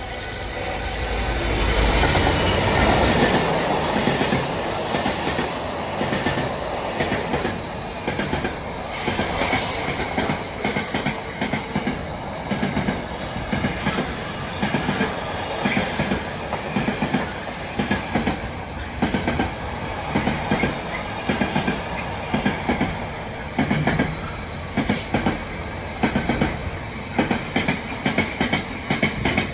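GBRf Class 66 diesel locomotive, a two-stroke V12, passing at the head of a container freight train: it grows loudest in the first few seconds as it goes by. A long rake of container wagons then rolls past, the wheels clicking over the rail joints in quick repeating groups, with a brief high squeal about ten seconds in.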